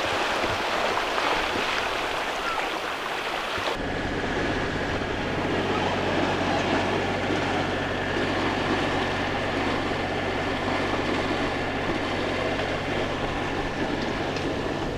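Water washing on a shore, then after a cut about four seconds in, a sailboat's inboard engine running steadily, a low drone with a faint high whine.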